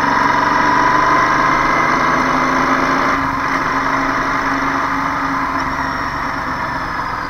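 Vehicle engine running steadily at low revs, amid road traffic, with an even hum that slowly gets quieter toward the end.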